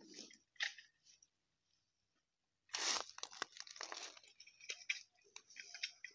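Hand rummaging through a plastic crate of freshly picked olives, the olives clicking and rattling against each other and the crate. After a short rustle and a quiet pause, a dense run of clicks and rustling starts about three seconds in.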